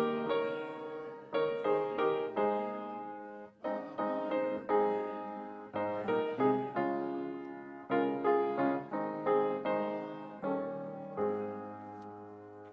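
Solo piano playing slow chords, each struck and left to die away, a fresh chord every second or so.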